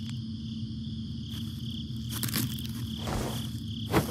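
Night-time crickets chirping steadily, with a few soft rustling swells and a short knock near the end.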